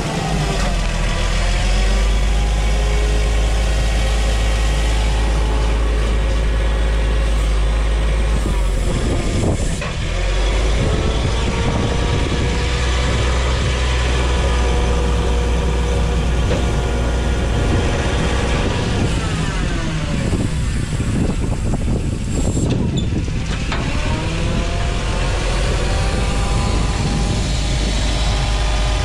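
Propane forklift engine running under load, revving down and up in pitch several times as the forklift pulls a chained engine along a trailer deck.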